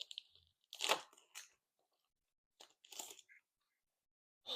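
Glossy trading cards being handled, slid and flicked one by one through a pack: a few short, faint rustles and scrapes.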